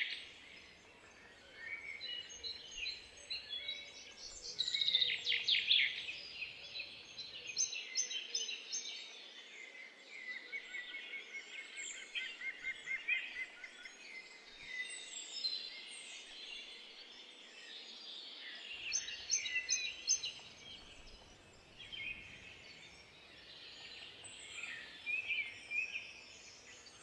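Several songbirds singing, a mix of short chirps and quick trilled phrases.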